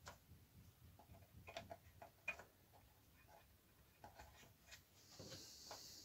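Faint clicks and light taps of small screws and nylon washers being handled and set into a parcel scale's metal dial face, with one sharper tick about two seconds in. A short soft hiss comes near the end.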